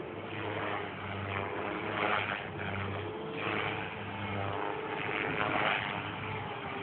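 Flybarless 450-size electric RC helicopter flying aerobatics: a steady motor and rotor whine, with the whoosh of the blades swelling and fading several times as it manoeuvres.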